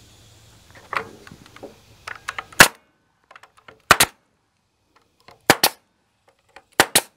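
Pneumatic nailer firing nails through a wooden cap piece into a rafter: four sharp shots about every second and a half, each of the last three a quick double crack. Light taps and clicks come before the first shot.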